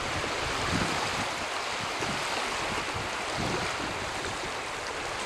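Steady wash of small lake waves lapping on the shore, an even hiss with a little low rumble of wind on the microphone.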